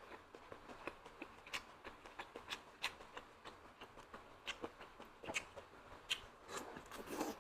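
Close-up eating sounds of someone chewing meat-stuffed apple snails: irregular soft wet clicks and smacks of the mouth, two or three a second.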